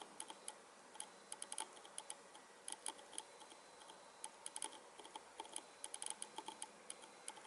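Faint, irregular small clicks from an NH35 automatic watch movement as its crown is turned to move the newly fitted hour hand round the dial.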